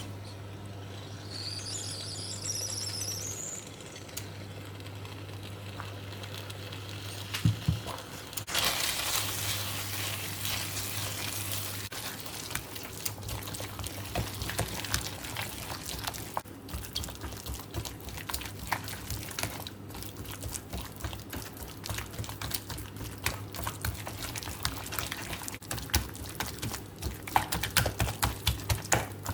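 Kitchen food-preparation sounds: a steady low hum at first, then from about eight seconds in a continuous liquid-like hiss dotted with many small clicks and taps, as of utensils working in a bowl or pan.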